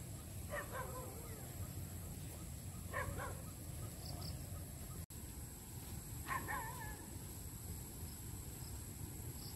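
Three short animal calls in the distance, about half a second, three seconds and six seconds in, the last with a wavering pitch, over a steady low background rumble.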